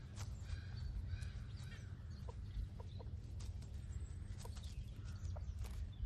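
Grey partridges giving soft, short clucking calls, with scattered brief notes and small clicks, over a low steady rumble.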